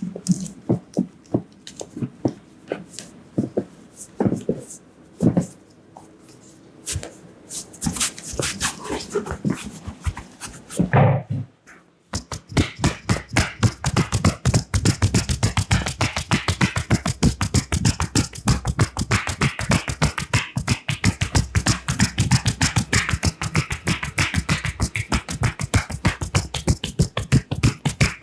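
Hands slapping and tapping on the head and body in an Indian head massage: scattered slaps at first, then from about halfway through a fast, even run of tapping strokes.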